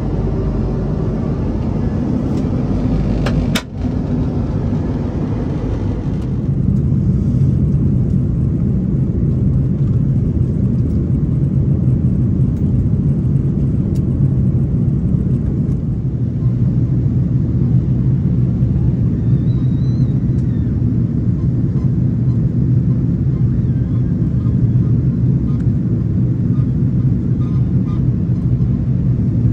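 Cabin noise of an Airbus A330-200 in flight: a steady rumble of engines and airflow. At first, in the lavatory, it is hissier; after a brief drop about four seconds in, it settles into the deeper, steadier drone heard at a window seat over the wing.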